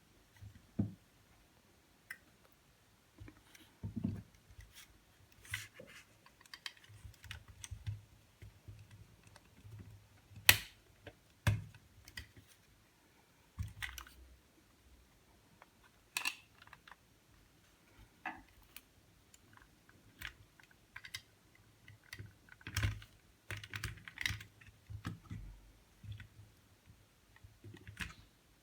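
Irregular light clicks and knocks of small hard parts being handled, with a sharper knock about ten seconds in.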